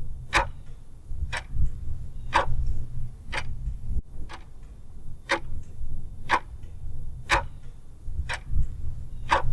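Clock ticking steadily, a sharp tick about once a second with fainter ticks in between, over a low hum.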